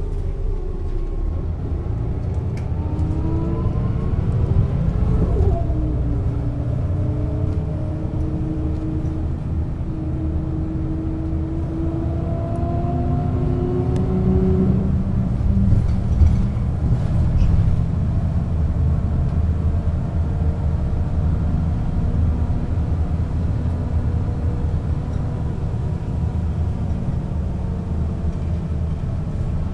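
1996 Setra S 315 UL bus with a ZF gearbox accelerating: the drivetrain whine rises in pitch and drops sharply at a gear change about five seconds in. It rises again until about fifteen seconds in, then gives way to a steady low rumble as the bus runs on.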